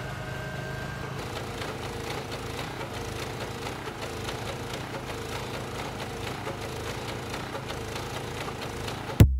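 A motor running steadily with a fine, rapid flutter.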